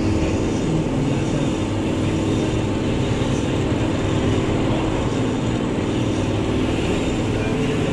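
Metal lathe running, its chuck spinning a cylindrical workpiece: a steady machine hum with a constant tone.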